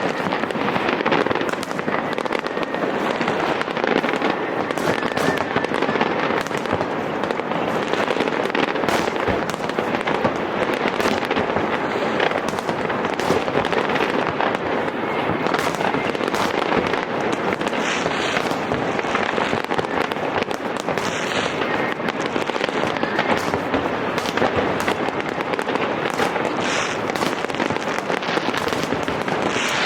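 Fireworks display: a steady barrage of overlapping bangs and crackling, with no let-up.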